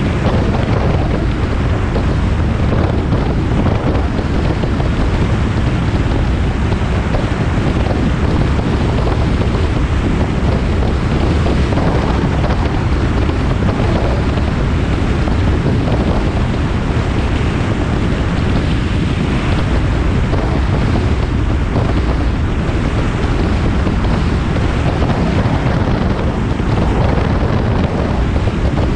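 Heavy wind buffeting a camera microphone on a moving car: a loud, steady rushing noise, heaviest in the low end.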